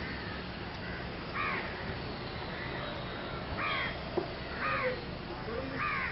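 Crows cawing, four separate harsh caws at irregular intervals, over a steady low background noise.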